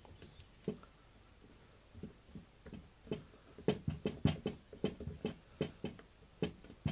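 Light, irregular clicks and knocks of a screwdriver and metal parts being handled as the pistol grip's retaining screws are tightened back down on a fitted folding stock. They begin about two seconds in and come a few a second.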